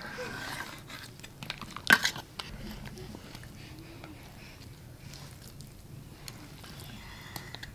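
Metal forks clicking and scraping on a steel plate as meat is pulled from a boiled goat head, with one sharp clink about two seconds in.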